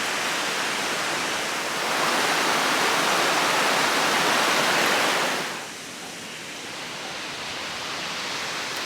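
Steady rush of falling water from Aber Falls and its river. It grows louder about two seconds in and drops noticeably quieter about five and a half seconds in.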